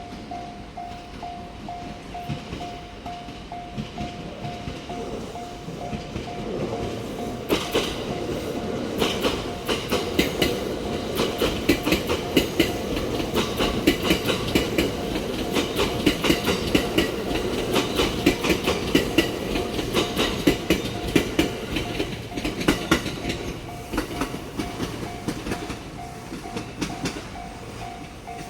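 Japanese railway level-crossing warning bell ringing steadily as a train passes over the crossing, its wheels clacking in a fast regular beat over the rail joints for about fifteen seconds from about a quarter of the way in, then fading.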